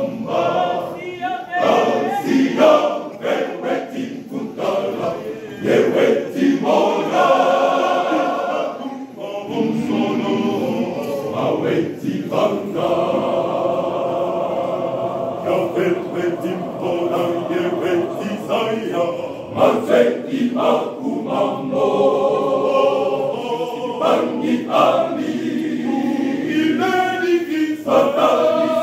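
Church choir of men and boys singing a hymn together without a break.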